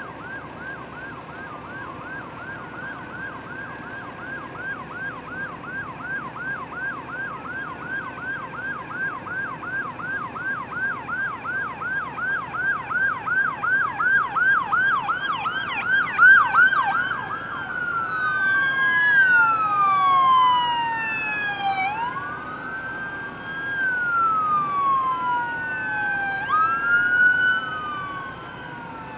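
Emergency vehicle sirens of an approaching escort procession. First comes a fast yelp, about three sweeps a second, growing louder. About halfway through it switches to a slow wail, with several sirens overlapping as they rise and fall.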